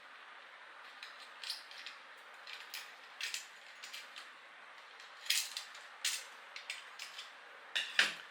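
Irregular light clicks and rustles of hands handling an extension box's flex wire, with a few sharper clicks in the second half.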